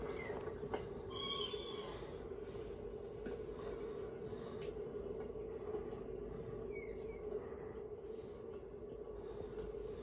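Cartoon sound effects: a short squeaky chirp from a small creature about a second in, and a few fainter squeaks later, over a steady low hum.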